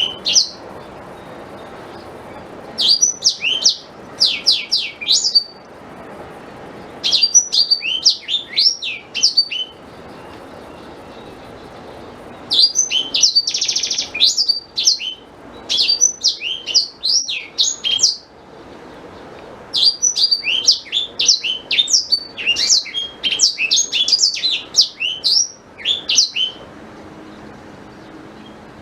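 Black-throated canary singing in rapid, high twittering phrases a few seconds long, separated by short pauses.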